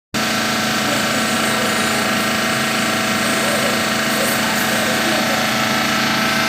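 CNC foam cutting machine running steadily: a constant mechanical whir and hiss with a steady hum, starting abruptly at the very beginning.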